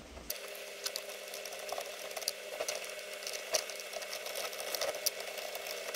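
Light irregular clicks and taps of a hand tool driving in the two small bolts that hold the airbag module to the back of a Jeep TJ steering wheel, over a faint steady hum.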